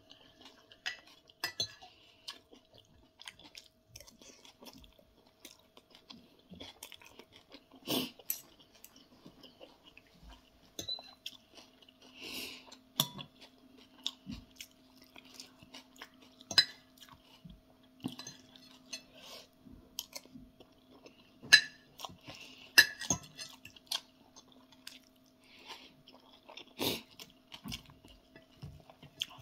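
Close-up eating: chewing with a metal fork and spoon clinking and scraping on a plate at irregular intervals. A faint steady hum runs underneath, a second, lower hum joining about ten seconds in.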